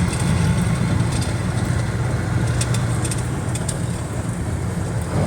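Motor vehicle in motion: a steady low engine and road rumble.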